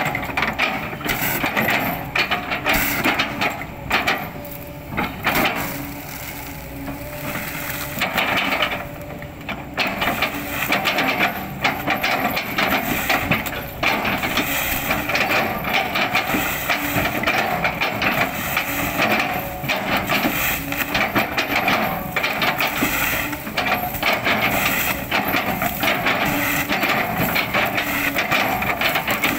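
An excavator running steadily under load while its bucket chops and crushes an oil palm trunk into chips: a continuous engine tone under many rapid cracks and crunches of splintering wood.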